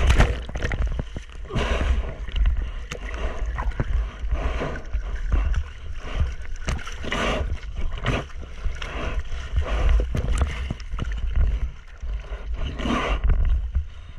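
Sea water splashing and sloshing over a surfboard-mounted camera in repeated irregular surges about once a second, with wind rumbling on the microphone underneath.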